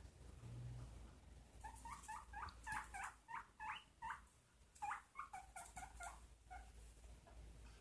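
Guinea pig squeaking: two runs of short, quick, rising squeaks, the second run starting about a second after the first ends.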